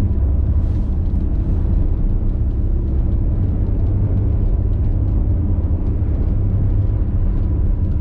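Steady low rumble of a Princess F70 motor yacht running at speed, heard from inside a cabin: engine drone mixed with water rushing and spraying against the hull windows.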